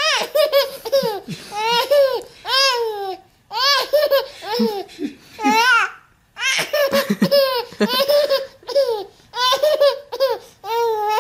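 Baby laughing hard in repeated high-pitched bursts of giggles, with short pauses between them and a brief break about six seconds in.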